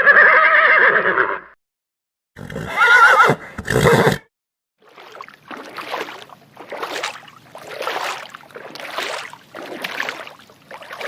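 Horse whinnying in two wavering calls, then a regular run of short breathy pulses, about two a second, from about five seconds in.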